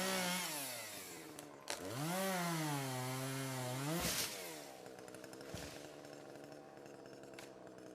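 Two-stroke chainsaw engine revving, its pitch sagging and climbing again a few times as if under load, with a sharp click about two seconds in. It then drops to a lower, steady idle that fades away.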